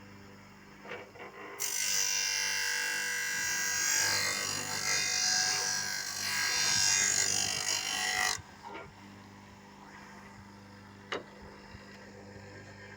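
Small table saw running with sandpaper glued to its blade, used as a circular sander: a steady motor hum, and from about a second and a half in a loud, rough sanding hiss as wood is held against the spinning disc for about seven seconds, stopping abruptly. A single sharp click near the end.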